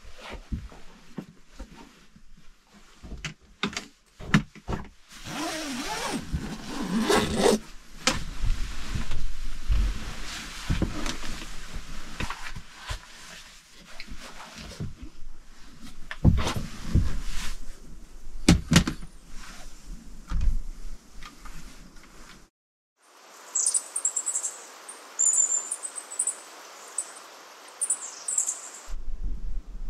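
Sleeping bag fabric rustling and shuffling, with soft knocks and clicks, as it is handled and spread out in the cramped camper shell. After a sudden cut about two-thirds of the way in, many short, high bird chirps sound over a steady outdoor hiss.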